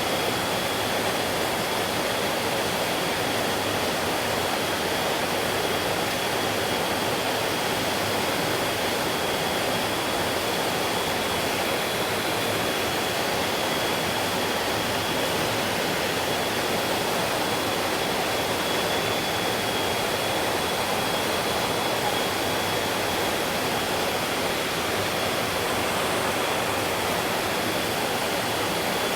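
Mountain stream flowing over rocks: a steady, even rush of water, with a thin steady high whine held over it.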